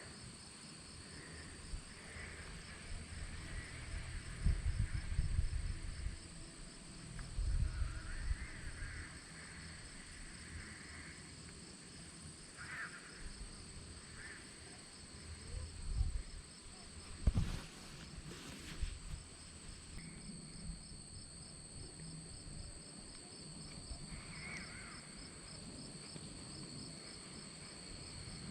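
Insects chirring steadily in a fast, even pulse, with a few low thumps and bumps at intervals.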